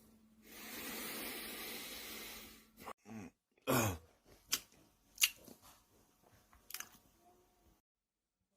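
A long breathy hiss, then two short groans sliding down in pitch, then a few sharp clicks; the sound cuts off near the end.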